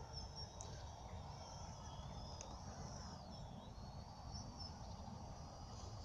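Faint high whine of a Parrot Bebop 2 quadcopter's motors and propellers as it flies low just before landing; the pitch dips and comes back up about three seconds in. A low rumble lies underneath.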